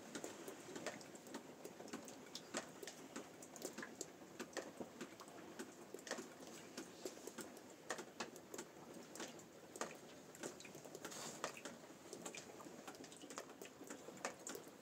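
Faint, irregular clicks and ticks, a few a second, over a low hiss.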